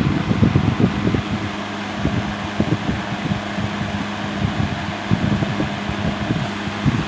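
Vintage 1970s Toastmaster 15-inch box fan running on medium speed: a steady motor hum and rush of air from the blades, with irregular rattling knocks as the vibrating fan shakes against the tabletop.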